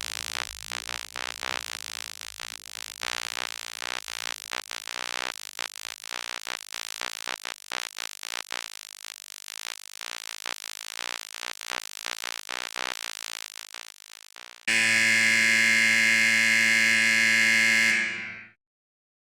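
Two electric buzzer sound effects. First comes a fast, irregular pulsing buzz that slowly fades over about fifteen seconds. Then a louder steady, harsh buzzer tone holds for about four seconds and cuts off.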